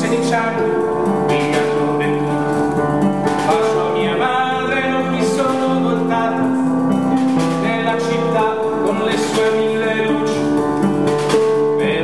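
A small live band playing a folk song: a strummed acoustic guitar, with keyboard, cello and hand percussion, held notes under regular beats.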